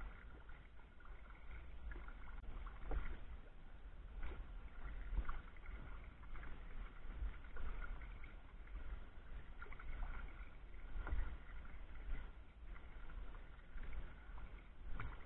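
Sea kayak under way: the paddle blades dip and splash softly in the water every second or two, over a steady low rumble.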